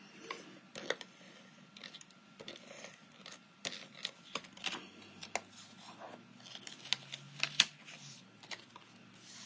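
Adhesive tape runner being run across a cardstock panel: a series of small clicks and short rasping strokes as the adhesive is laid down and the paper is handled, with one sharper click near the end.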